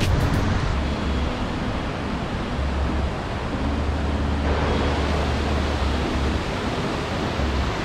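Waterfall rushing steadily, with a low rumble that comes and goes.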